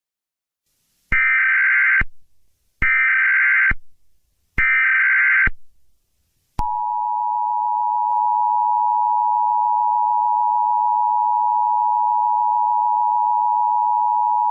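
Emergency Alert System alert tones: three short warbling data bursts of the SAME header, each just under a second with short gaps between, then the long steady two-tone attention signal starting about halfway through and still sounding at the end. The sequence signals that an emergency alert message is about to be read.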